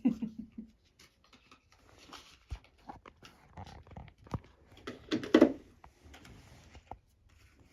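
Small toy food pieces and doll fridge parts being handled: scattered light clicks and knocks, with a louder knock about five seconds in.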